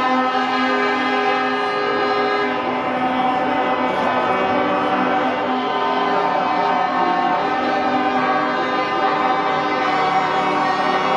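Truck air horns sounding continuously, several horns overlapping in held multi-tone chords that change every few seconds.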